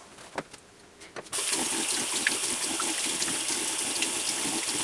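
Bathroom tap turned on about a second in and running steadily into the sink basin, after a few faint knocks.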